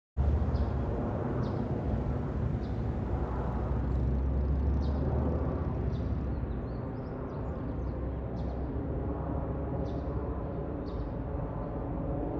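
Outdoor ambience: a steady low rumble with faint, short high chirps about once a second.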